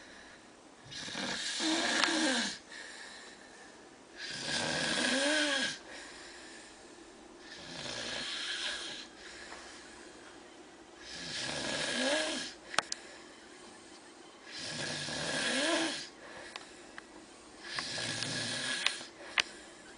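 A man snoring in his sleep: about six snores, one roughly every three seconds, several with a whistling pitch that rises and falls. There are a few brief sharp clicks in the second half.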